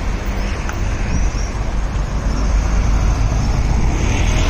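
City street traffic: a steady rumble of passing motor vehicles.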